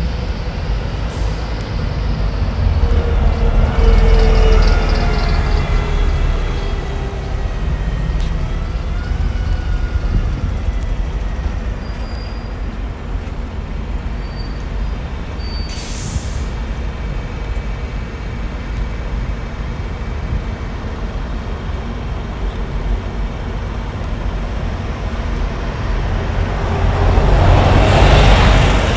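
City street traffic: a steady low rumble of passing vehicles, with a short hiss about halfway through. Near the end a double-decker bus passes close by, and its rising engine and tyre noise is the loudest part.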